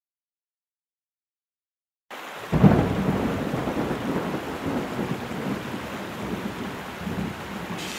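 Silence for about two seconds, then a cartoon soundtrack of heavy rain comes in with a low rumble of thunder just after it starts, the rain carrying on steadily.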